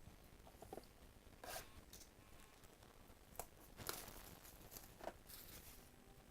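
Trading card pack wrapper being torn open and crinkled by hand: a series of short rips, the loudest about four seconds in.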